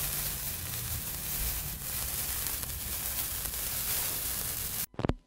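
Steady static hiss with a rumbling low end, like old film-soundtrack noise, that cuts off abruptly near the end, followed by a couple of sharp clicks.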